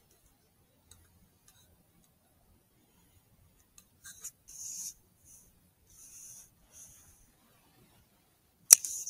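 Short, high-pitched squeaks of a predator call, imitating distressed prey to draw a fox in. They come in a string of brief bursts starting about four seconds in, with a sharper, much louder squeak near the end.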